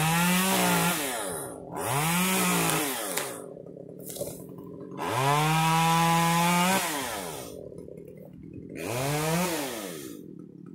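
Chainsaw revved four times while cutting limbs off a tall pine. Each burst rises in pitch, holds for one to two seconds and falls back to idle; the third burst is the longest.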